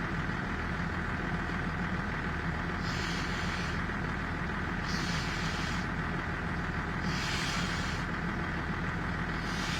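Steady low hum of an idling engine. A soft hiss comes and goes about every two seconds, four times.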